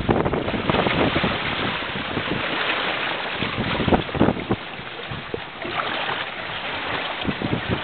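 Wind buffeting the microphone over water splashing and sloshing against the side of a boat, with irregular short surges of splash.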